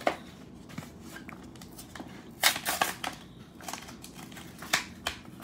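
Trading card pack wrapper crinkling and tearing as a baseball card pack is opened by hand, in a few short bursts, the loudest about two and a half seconds in.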